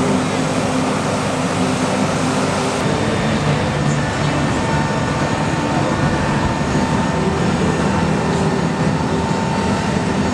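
Steady machine drone, running without a break, with a low hum and a fainter high whine in it.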